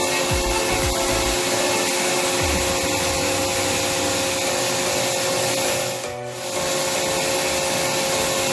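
Resemin Raptor 55 long-hole drilling rig drilling rock with a 64 mm bit: a loud, steady mechanical din with steady tones underneath, dipping briefly about six seconds in.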